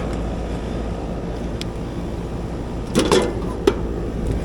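Commercial air-conditioning unit running with a steady low hum; it is running when it should be off because its contactor is welded shut. A few sharp clicks and knocks come about three seconds in.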